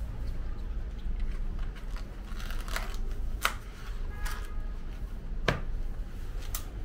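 Thin plastic bag crinkling and rustling, with two sharp clicks, as fried dough sticks (youtiao) are handled and bagged, over a low steady background hum.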